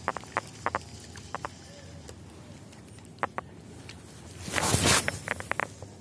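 Short sharp clicks, mostly in pairs. About four and a half seconds in comes a loud, half-second splash of a snakehead striking at the surface, followed by a quick run of four clicks.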